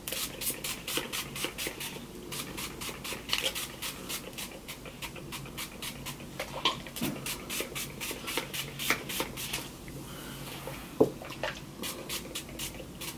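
Small pump spray bottle of hair product spritzed rapidly onto wet hair, about three short hissing sprays a second. The spraying pauses briefly near the end, a sharp click sounds, and then it resumes.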